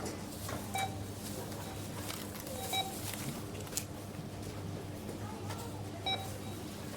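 Supermarket checkout barcode scanner beeping three times: about one second in, near three seconds, and about six seconds in. Under the beeps are a steady low hum and scattered clatter and rustle of items being handled.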